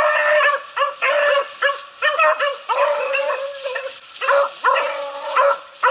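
Beagles baying with quick, repeated yelping calls, about two a second, overlapping at first, with a few longer drawn-out bays. This is the voice hounds give while running a rabbit's scent trail.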